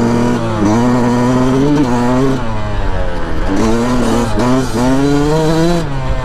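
Dirt bike engine under hard acceleration, its pitch climbing and then dropping back at each gear change, several times over.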